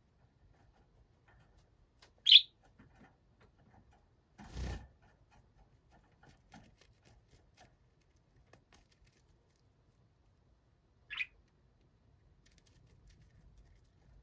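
Budgerigar giving two short, sharp chirps: a loud one about two seconds in and a fainter one near the end, with a brief dull rustle in between.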